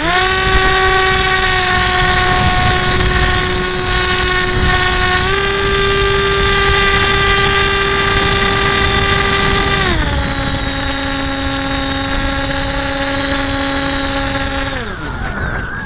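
Hobbyking Breeze 2 model plane's motor and propeller whining steadily, heard from the camera on board over rushing wind. The pitch steps up slightly about five seconds in, drops about ten seconds in, and glides down and fades out near the end as the throttle is cut.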